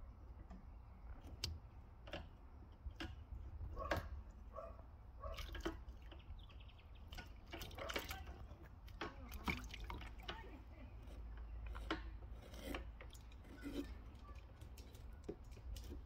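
Quaker parrot (monk parakeet) bathing in a tub of water, splashing and shaking its wings: irregular splashes and drips.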